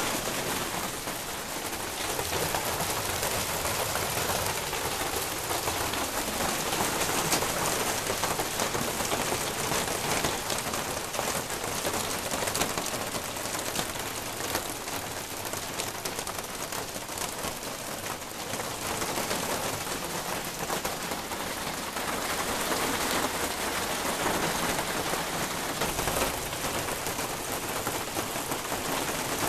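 Hail and heavy rain pelting a corrugated plastic roof overhead: a dense, steady clatter of countless small impacts with the rush of rain beneath it.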